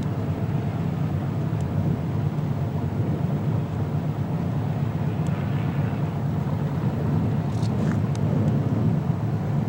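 Stock car V8 engines droning steadily as the cars lap the oval some distance away.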